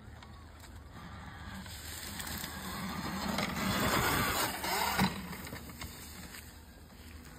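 Electric dirt bike riding past close by: its sound swells over a couple of seconds, peaks about four seconds in, then fades as it rides away. There is one sharp knock about five seconds in.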